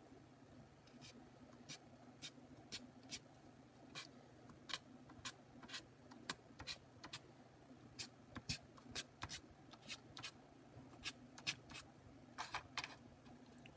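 Edge of a piece of cardboard scraping short strokes of tempera paint across paper, in quick irregular strokes about two a second, starting about a second in.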